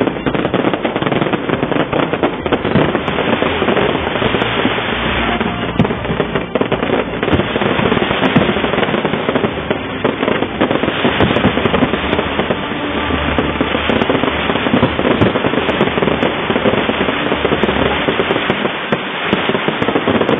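Fireworks display: a dense, continuous barrage of bursting shells and crackling, with many overlapping bangs and no pauses.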